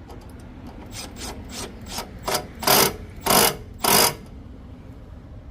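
Ratchet wrench being worked back and forth to tighten a bolt: about eight short rasping ratchet strokes that grow louder, the last three the loudest, stopping about four seconds in.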